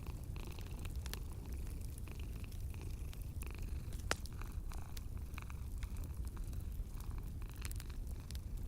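A cat purring steadily, a low rumble, over a wood fire crackling with scattered sharp pops; the loudest pop comes about four seconds in.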